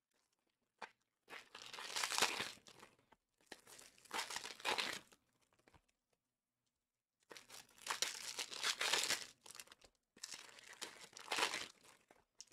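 Foil wrappers of Panini Prizm Fast Break trading card packs crinkling and tearing as they are ripped open by hand, in four bursts of about two seconds each with short quiet gaps between.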